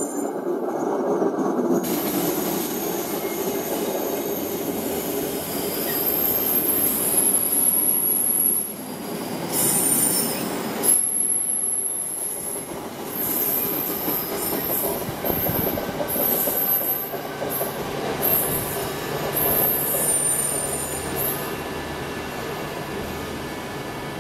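A long empty freight train of container flat wagons passing, its wheels rumbling and rattling on the rails with high-pitched wheel squeal coming and going. The noise dies away near the end as the last wagons clear.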